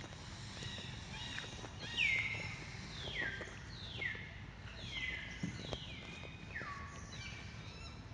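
An animal calling six times, about one call a second, each a high call that falls steeply in pitch, over a steady low background rumble.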